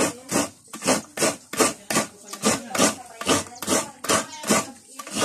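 Coconut half scraped against the serrated metal blade of a wooden coconut grater (kudkuran), grating fresh coconut meat. The rasping strokes come in a steady rhythm, about two to three a second.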